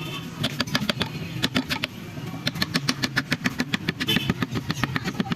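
Carving tools working wood: a quick, irregular run of sharp taps and cuts, several a second.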